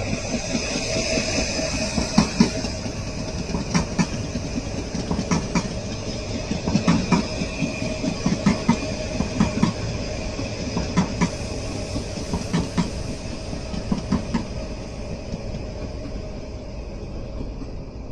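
A train passing, its wheels clicking in quick pairs and groups over rail joints, over a steady rumble and whine. The clicking dies away near the end as the train moves off.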